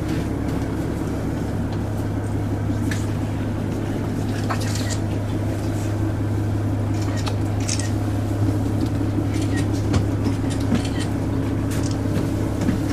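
Steady low drone of a stationary diesel railcar idling, heard from inside the passenger cabin, with a few brief faint higher-pitched flecks over it.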